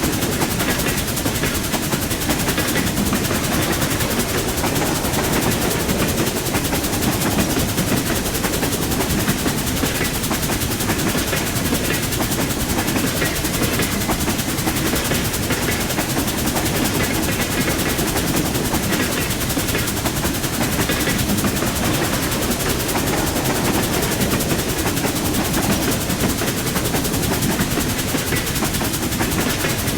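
Train running along the track: a steady rumble with a dense, rapid clatter.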